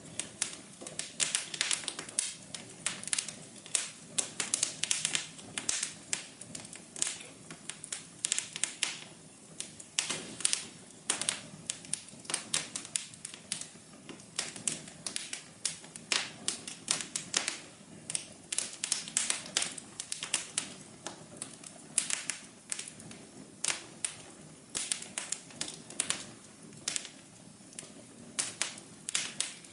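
Wood fire crackling: many quick, irregular pops and snaps over a soft steady hiss.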